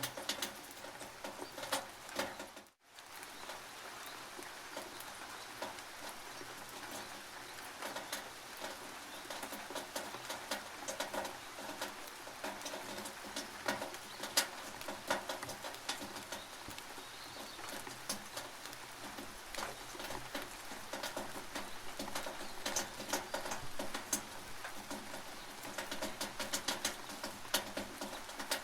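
Rain dripping and pattering on a tin roof: a steady hiss thick with irregular sharp drip ticks. The sound drops out for a split second about three seconds in.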